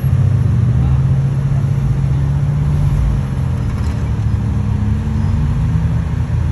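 Off-road vehicle's engine running with a steady low note, easing slightly about three seconds in.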